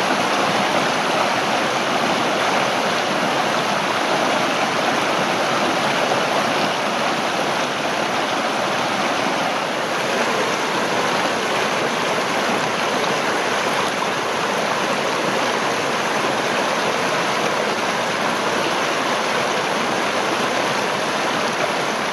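Small forest stream rushing over rocks and mossy logs in little cascades: a steady, unbroken rush of water.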